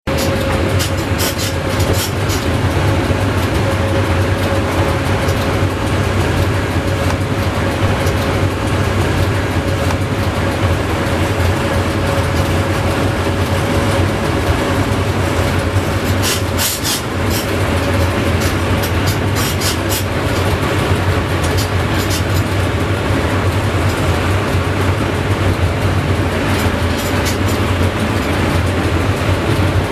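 Inside the cab of a PKP EP07 electric locomotive running at speed, about 115 km/h: a steady loud rumble of wheels on rail and running gear, with a constant mid-pitched whine. A few short clicks come through now and then.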